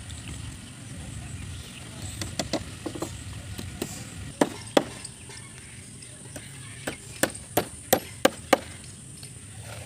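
Hammer striking nails into wooden shuttering planks: a few light taps, then two sharp strikes about halfway through and a run of five strikes, about three a second, near the end.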